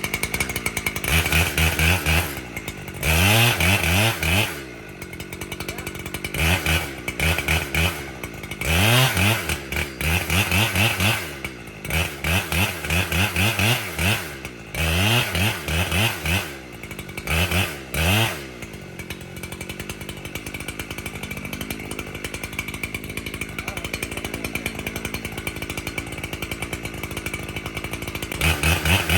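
Two-stroke chainsaw revved up in repeated short bursts to high speed, about seven times, then settling to a steady idle for several seconds before revving again near the end.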